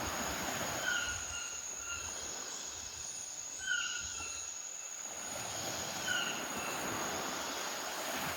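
Tropical rainforest ambience: a steady high-pitched insect drone, with a short animal call of a few notes repeating about every two and a half seconds.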